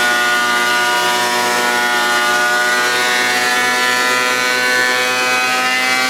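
Thickness planer running steadily under load as a board is fed through, a loud motor whine with many overtones whose pitch sags slightly as it cuts.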